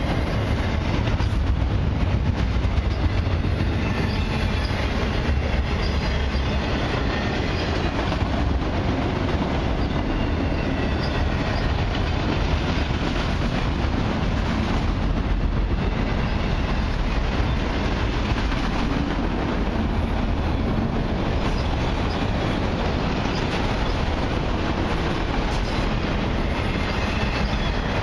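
Freight train of autorack cars rolling past at steady speed: a continuous rumble and clatter of steel wheels on rail.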